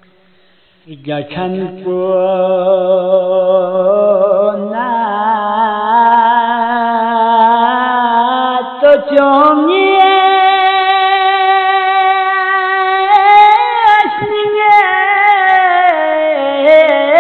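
A solo voice singing a Balti qasida (devotional poem) in long, drawn-out notes that waver and slide between pitches. It starts about a second in, after a brief silence.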